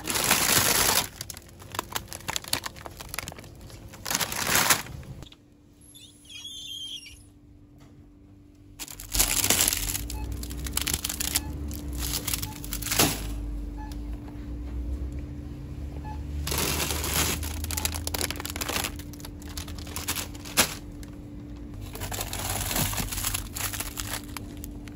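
Plastic packs of frozen food crinkling in bursts as they are handled and dropped into a wire shopping trolley, with a few sharp knocks and a steady hum from about five seconds in.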